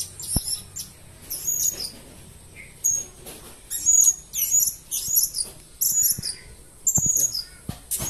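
Caged blue-crowned hanging parrots (serindit) giving quick, high-pitched chirps over and over, with two sharp knocks, one near the start and one near the end.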